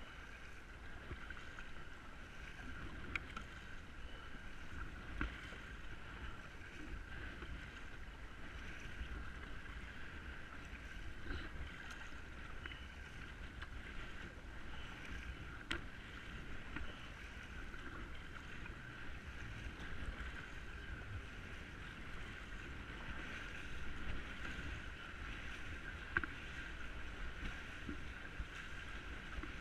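Kayak on the water: paddle splashes and water lapping at the hull, with a low wind rumble on the microphone and scattered small knocks.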